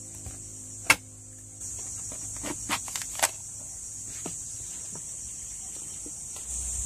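A husked coconut being cracked open: one sharp knock on the shell about a second in, then a quick run of cracks and clicks as the shell splits into halves. A steady high insect drone runs underneath.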